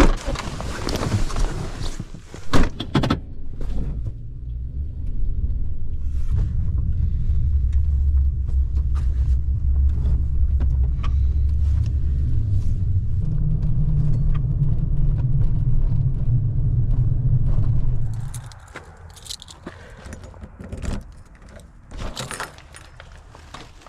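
A vehicle running, a steady low rumble that shifts up in pitch partway through and then dies away, with knocks and a jangle of keys near the start.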